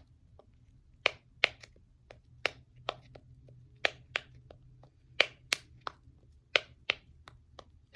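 Silicone dimple fidget toy being pressed over and over, its bubbles popping in and out with a string of sharp clicks, irregularly spaced at roughly two a second.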